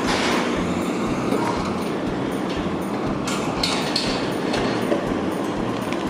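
Meitetsu Kowa Line electric train running past on the tracks, a steady rumble with scattered clacks from the wheels.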